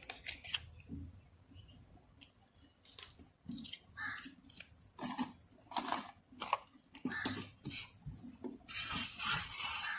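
Handling noises from paper and card packaging: scattered rustles, taps and scrapes, with a longer rustle near the end.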